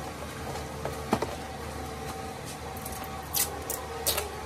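A cardboard product box being folded shut and handled by hand: a small click about a second in, then two short scrapes and rustles of the cardboard near the end, over a steady low hum.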